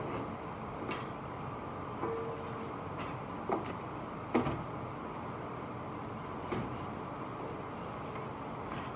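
Scattered clicks and knocks of hardware being handled on a metal truck tool box, with a short squeak about two seconds in, over a steady background hum.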